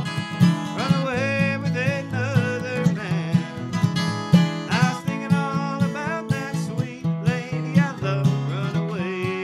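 Acoustic guitar flatpicked in an old-time tune, a quick, steady run of picked notes.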